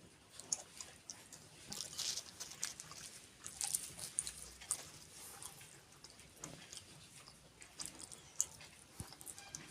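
A person chewing and eating puri with kheer, close to the microphone: many short, wet mouth clicks and smacks at an irregular pace.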